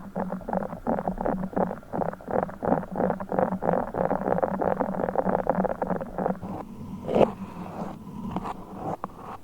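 Close-miked squishing and crackling of a broken Orbeez water-bead stress ball being squeezed by hand, a quick run of many short squelches. About two-thirds of the way through it stops, and sparser single crackles and taps follow as a beeswax sheet is handled.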